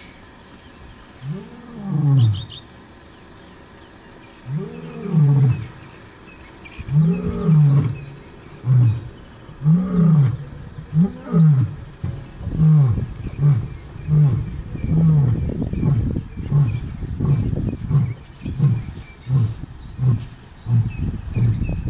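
Old male lion roaring: a bout that opens with a few long, moaning roars a couple of seconds apart, then breaks into a quick run of short grunts, more than one a second, that ease off a little toward the end.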